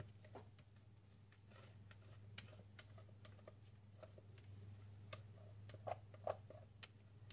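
Near silence: a steady low hum with scattered faint light clicks and taps, two slightly louder knocks about six seconds in.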